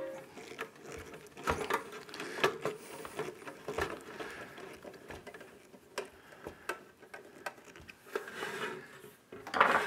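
A screwdriver driving small screws into the top cover of a sheet-metal project box, with scattered clicks and scrapes of metal on metal as the box is handled. Midway there is a brief rustle as a thin plastic sheet is handled.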